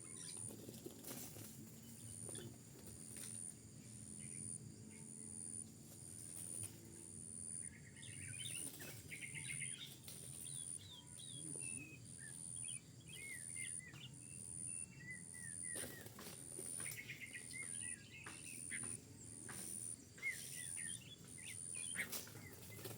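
Birds chirping in quick, scattered short notes from about eight seconds in, over a faint high-pitched tone that pulses evenly, roughly once a second.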